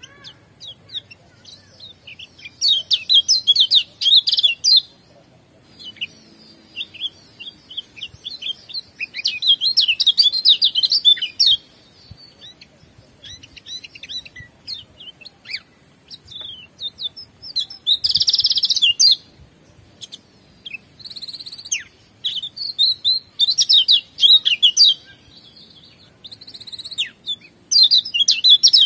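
Caged kecial kuning (white-eye) singing a varied song in bursts of quick twittering chirps, five or so phrases a few seconds apart, with short pauses between them. A thin steady high tone runs underneath.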